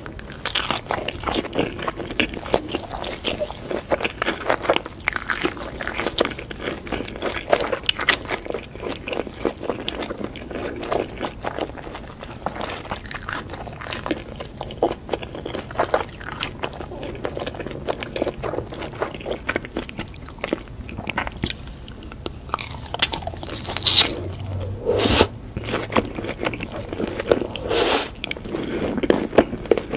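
Close-miked crunching bites and chewing of crispy crumb-coated fried bread rolls filled with sausage, a dense run of crackly crunches with a few louder bites in the last several seconds.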